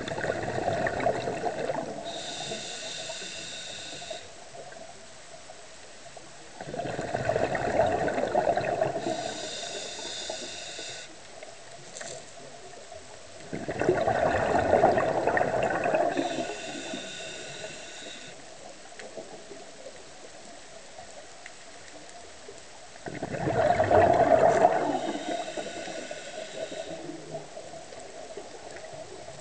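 Scuba diver's regulator breathing: four exhalations, each a roaring burst of bubbles about two seconds long, every seven to nine seconds, each soon followed by a short whistling hiss through the regulator.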